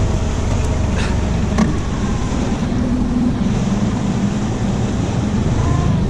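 Boat motor running with a steady low rumble, with a couple of light knocks about a second in.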